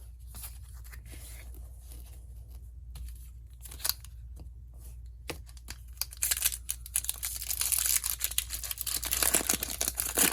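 A Magic: The Gathering booster pack's wrapper being torn open and crinkled, starting about six seconds in after a few light clicks of cards being handled.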